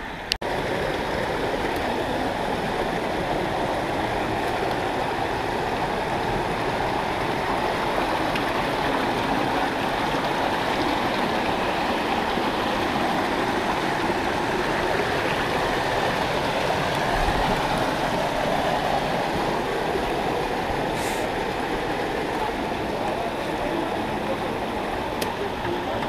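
A rocky stream rushing over stones in a steady, loud flow that cuts in abruptly just after the start.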